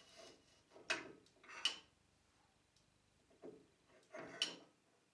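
Steel shaft and nut parts knocking and clicking against the motor unit's steel bracket as they are fitted together by hand: four short, quiet knocks.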